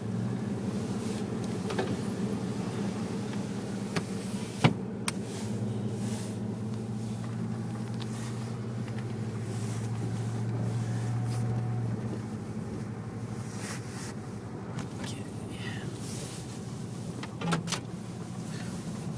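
Car engine running steadily while driving, a low drone that grows louder for several seconds in the middle, with a few sharp clicks about four to five seconds in.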